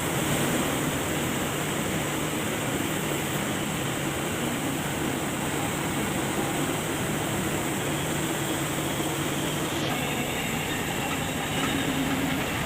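Heavy diesel farm machinery running steadily, a dense engine and mechanical noise.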